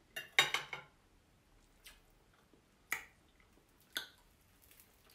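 A person chewing roasted pork close to the microphone: scattered sharp, wet mouth clicks and smacks. The loudest cluster comes near the start, then single clicks about once a second.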